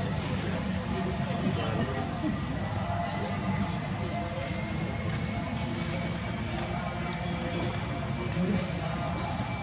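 Insects, crickets or cicadas, keeping up a steady high buzz with a short rising chirp repeating every half second to a second, over a low rumble.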